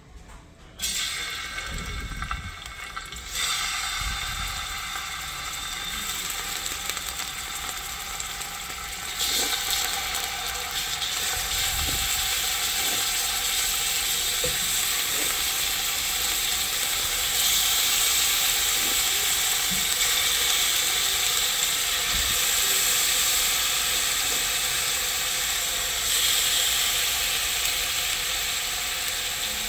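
Chicken wings sizzling in hot oil as pieces are laid one by one into a pot to brown; the frying hiss and crackle steps up louder each time more chicken goes in, with a few soft thuds as pieces are set down.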